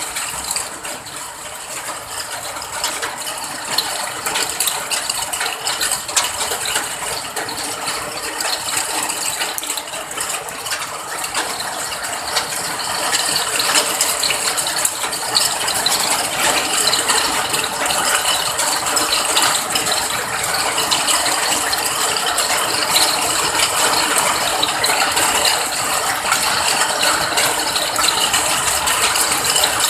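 Rain falling steadily, a dense patter of countless drops ticking on hard surfaces, growing a little louder about halfway through.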